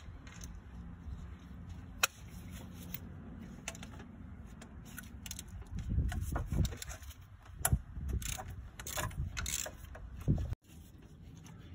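Hand tools working on a car engine: metal clicks, knocks and clatter as tools are handled against engine parts. There is a sharp click about two seconds in and a busier run of knocks in the second half, and the sound cuts off abruptly near the end.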